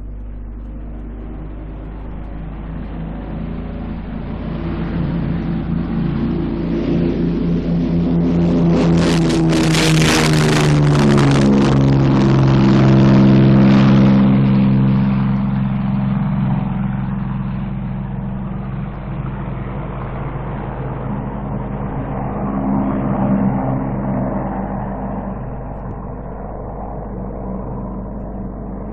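de Havilland Mosquito's twin Rolls-Royce Merlin engines at full power on the take-off run: the sound swells to a peak about ten to fourteen seconds in, the engine note drops in pitch as the aircraft passes, then it fades into the distance. A steady low hum from the old recording runs underneath.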